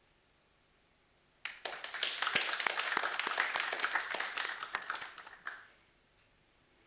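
Applause from a small audience: a burst of clapping that starts about a second and a half in, lasts about four seconds and dies away.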